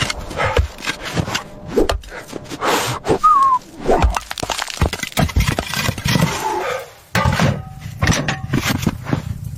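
Irregular series of cracks, knocks and scrapes, with a brief falling whistle-like tone about three seconds in.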